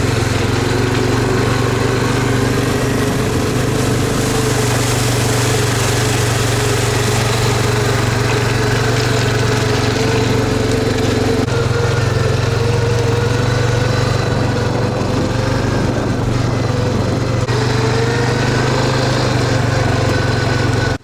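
A car engine running steadily, its note slowly climbing, falling back once about two-thirds of the way through and climbing again.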